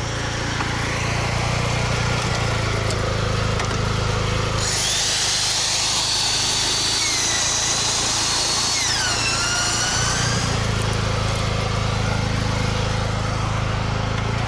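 The steady drone of a petrol generator, with an electric power tool running on it for about six seconds in the middle: a high whine that dips in pitch under load and then settles before it stops.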